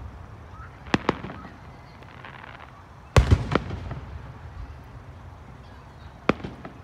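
Aerial firework shells bursting: a quick double bang about a second in, a cluster of louder bangs that ring out in the middle, and one more bang near the end.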